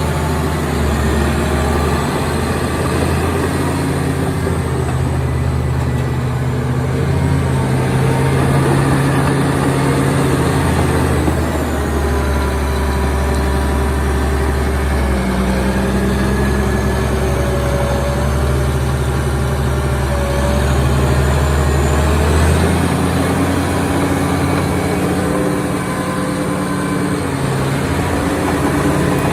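Caterpillar D7G2 bulldozer's diesel engine running, its speed shifting up and down several times, with a thin high whine that rises and falls.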